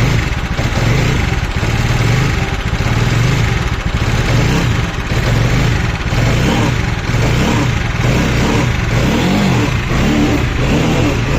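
TVS Apache 200 cc single-cylinder motorcycle engine running, steady at first, then revved in repeated throttle blips from about halfway through. The engine is being checked for a 'ting ting' noise.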